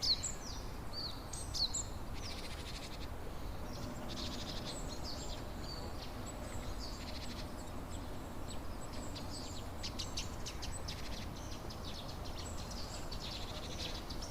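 Small songbirds chirping and trilling repeatedly over a steady rush of flowing water.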